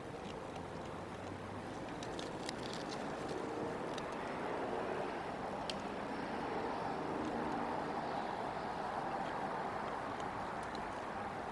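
A vehicle passing on a road within reach of the microphone, a steady rushing sound that swells from about four seconds in and eases toward the end, with a few faint clicks over it.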